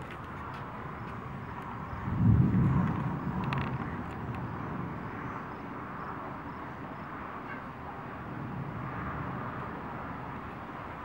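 Steady hiss of heavy rain from a thunderstorm. About two seconds in, a low rumble swells up and dies away over a second or two.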